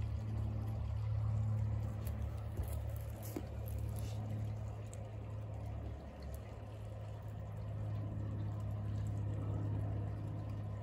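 Steady low hum with water trickling and splashing in the pond.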